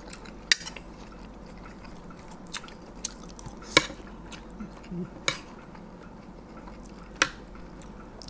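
Eating sounds: a handful of short, sharp, wet clicks and smacks, about six over eight seconds, from spoons against a plate and mouths chewing the spicy fried-egg salad.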